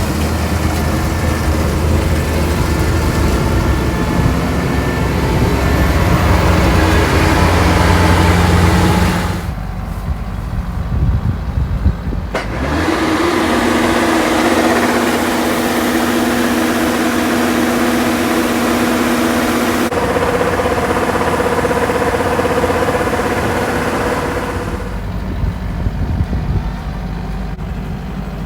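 Rice combine harvester running: a loud, steady engine hum with machinery whines, the pitch and mix changing sharply a few times.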